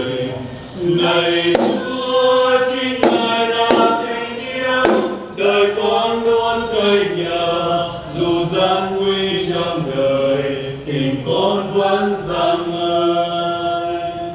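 A choir singing a slow hymn with accompaniment, holding each note for about a second before moving to the next.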